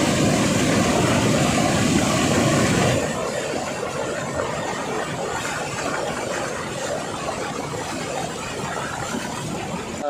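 Waterfall water rushing and splashing close to the microphone as it pours over a person bathing beneath it. The steady rush drops a little in level about three seconds in.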